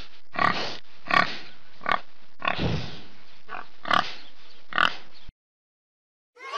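A pig grunting: a quick series of about seven short calls over five seconds, cutting off suddenly.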